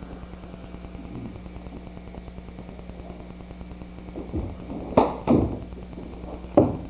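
A martial artist's feet striking and landing on a wooden floor during a leaping form: a soft thud, then three sharp thumps about 5, 5.3 and 6.6 seconds in, the first and last loudest. A steady low hum runs underneath.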